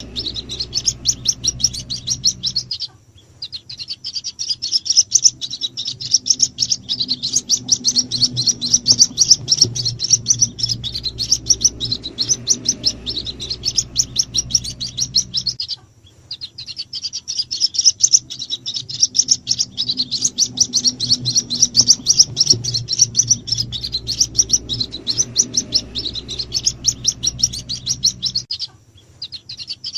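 White-breasted waterhen chicks peeping in a fast, unbroken stream of high-pitched chirps: a lure call meant to draw the adult birds in. The recording repeats, with brief breaks about three seconds in, about halfway and near the end.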